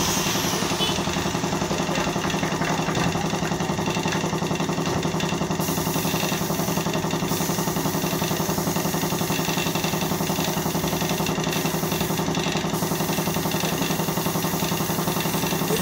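Piston air compressor running steadily, with a rapid, even pulsing and a hiss above it.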